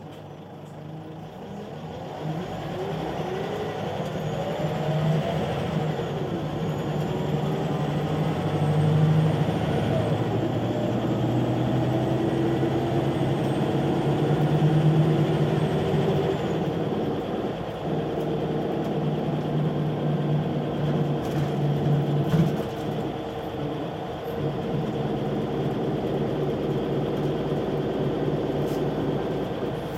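Scania CL94UB city bus heard from the passenger cabin, its engine rising in pitch and loudness as the bus pulls away and picks up speed, with a couple of gear changes in the first ten seconds. It then runs steadily at speed, with a faint high whine over the engine drone.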